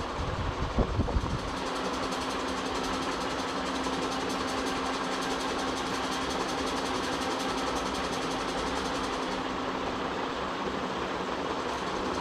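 Ceiling fan running with a steady hum and a continuous rough mechanical noise, the sound of a worn fan bearing. A few low knocks come about a second in.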